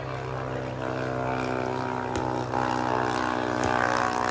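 An engine drones steadily, rising slightly in pitch and growing louder, with a few faint taps over it.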